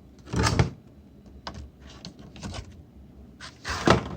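Handling of the collection box's cardboard and plastic packaging as items are taken out: a rustling scrape about half a second in, light clicks and taps, and a louder scrape near the end.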